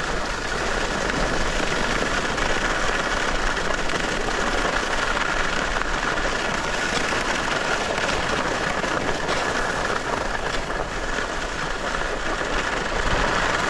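Skis sliding on snow with wind rushing over the microphone: a steady, unbroken rush.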